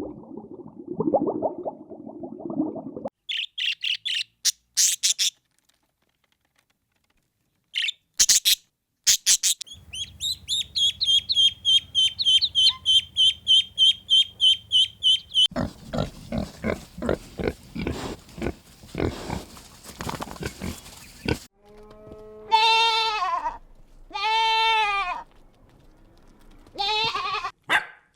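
A run of different farm-animal calls: low calls for the first three seconds, short high chirps, a bird's trill lasting about five seconds, a stretch of quick pulsed calls about four a second, then three bleats near the end.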